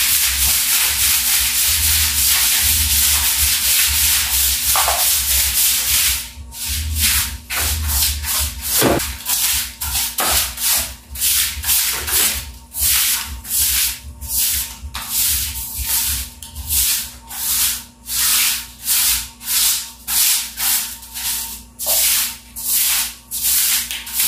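Long-handled brush scrubbing a wet, soapy tiled floor doused with bleach. The bristles rasp continuously for the first few seconds, then settle into back-and-forth strokes about twice a second.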